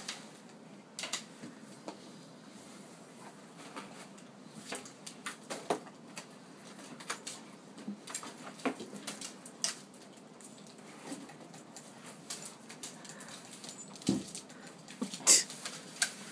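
Dogs' claws clicking and scuffling on a hardwood floor as a Siberian husky puppy and a staffy play, in irregular light taps, with a dull thump and a sharp knock near the end.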